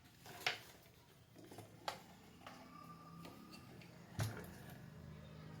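A few faint, sharp clicks and taps of handling on a workbench, about four of them spread out, over a faint steady low hum, with a faint thin tone for about a second and a half in the middle.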